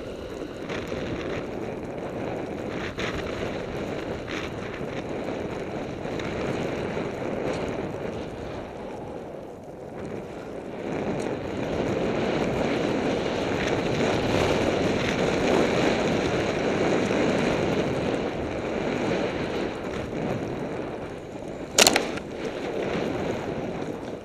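Snowboard sliding and carving over fresh snow, with wind rushing over the camera microphone: a steady rush that swells in the middle. A single sharp knock near the end is the loudest sound.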